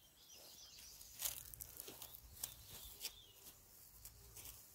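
Faint outdoor ambience with a few soft, scattered ticks and rustles.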